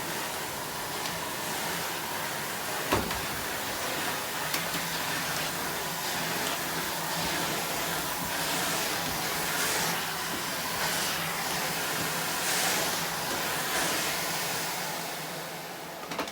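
1996 Numatic NVQ250 tub vacuum cleaner, fitted with a spare motor, running steadily with a whine and suction hiss that swells and fades as it is used. A sharp click comes about three seconds in, and near the end there is another click and the sound begins to die away.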